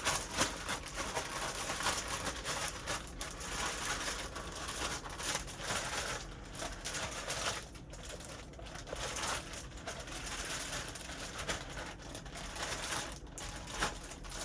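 Chicken pieces being shaken with seasoning in a plastic zip-top bag: continuous crinkling and rustling of the plastic.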